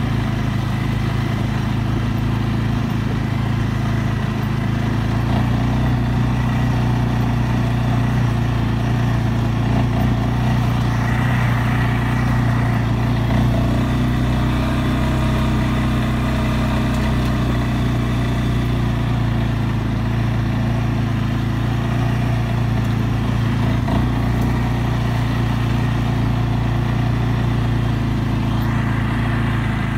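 CFMOTO CFORCE 600 ATV's single-cylinder, liquid-cooled engine running steadily while the quad drives along a dirt track.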